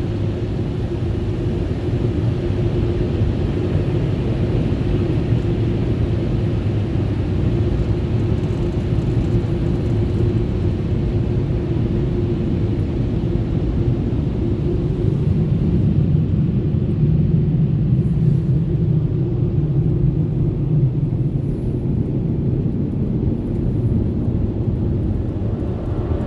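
Car wash air dryer blowers running, a loud steady rush of air with a deep hum, heard from inside a minivan. The hum settles lower a little past halfway.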